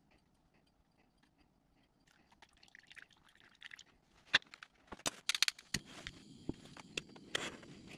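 A metal straight edge scraping half-melted crayon wax and crayon pieces out of a metal tin, with crunchy scraping and several sharp metal clinks and knocks, the loudest in the second half. A faint steady hiss with a few high tones comes in near the end.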